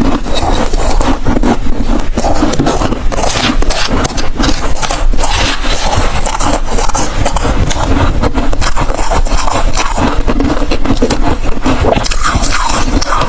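Loud, close-miked crunching and chewing of hard freezer ice, a dense unbroken run of sharp cracks and crunches.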